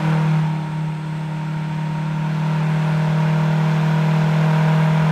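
A large electric ducted fan with a 3D-printed impeller spins up on its test stand toward half throttle. It gives a loud, steady low drone with a whine and rushing air over it, coming in sharply at the start and rising a little over the first couple of seconds.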